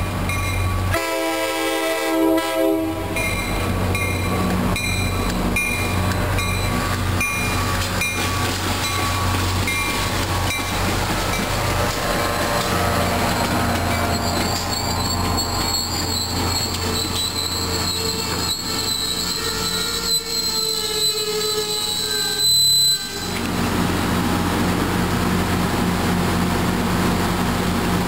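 MBTA commuter train passing: the diesel locomotive's steady drone under it, a horn blast about a second in, and the coaches rolling by with their wheels squealing on the rails through the middle of the passage.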